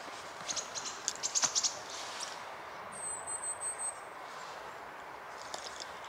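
Rustling and light clicks of a hot tin can being handled in a leather pad, in a cluster during the first two seconds, over steady quiet forest ambience.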